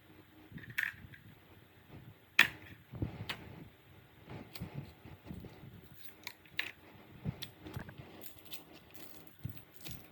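Small metal parts and tools being handled: scattered sharp clicks, taps and clinks, the sharpest about two and a half seconds in.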